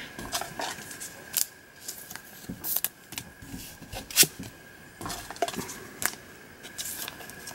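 Cardboard trading cards being handled on a tabletop, picked up, slid and set down: scattered light clicks and taps, the sharpest about four seconds in.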